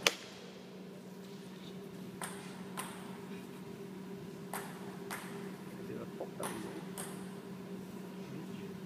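Table-tennis ball clicks: one sharp hit right at the start ends a rally, then light clicks in pairs about half a second apart as the ball is bounced between points. A steady electrical hum runs underneath.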